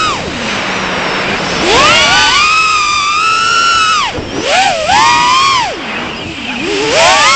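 Brushless motors and props of a 3.5-inch FPV quad whining, heard through the onboard action camera. The pitch falls to near idle just after the start, climbs on throttle about a second and a half in, dips twice in the middle and rises again near the end.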